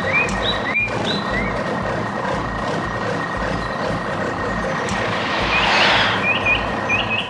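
Heavy construction machinery running with a steady rumble and a thin, steady high whine, with short high chirps throughout. A hissing swell rises and fades about six seconds in.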